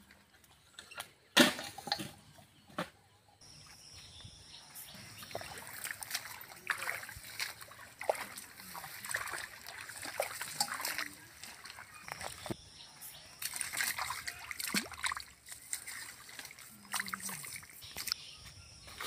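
Shallow muddy water splashing and sloshing as it is scooped with bowls and groped through by hand in a drained ditch, with a loud splash about a second and a half in and many smaller splashes after.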